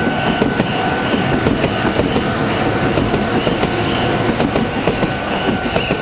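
Red Meitetsu electric train passing over a level crossing, its wheels clacking fast over the rail joints until it clears near the end. Under it the crossing's warning bell rings on with a repeating tone.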